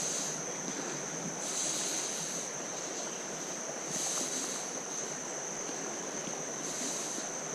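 Creek water running over rocks, a steady rushing noise, with a thin steady high-pitched whine over it and a high hiss that swells every two to three seconds.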